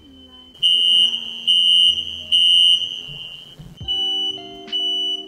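Smoke alarm going off: a loud, piercing high beep repeating in groups of three with a short pause between groups.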